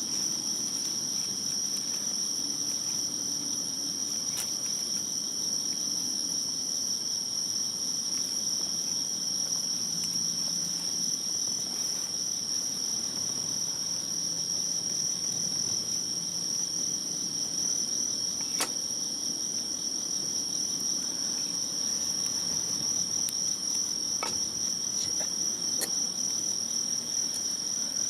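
A steady, high-pitched chorus of insects trilling without a break. A few faint sharp clicks are scattered through it.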